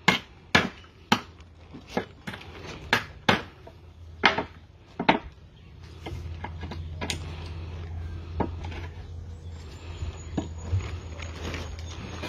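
Hammer knocking while a homemade pallet breaker pries the slats off a wooden pallet: sharp wooden knocks about twice a second for the first five seconds, then a few scattered knocks over a low steady hum.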